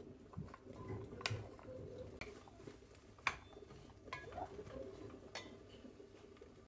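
Chopped carrots, onion and potato tumbling from a tray into a pot, then a wooden spatula stirring them, with a few sharp knocks against the pot, the loudest about three seconds in.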